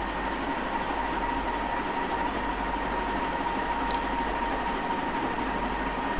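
Steady background hum and hiss with a faint, constant high-pitched tone.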